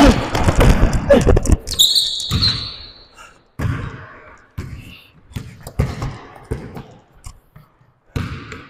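A basketball being dribbled on a court, one bounce about every second through the second half. It comes after a loud jumble of thuds and voice-like sounds in the first two seconds and a brief high squeak about two seconds in.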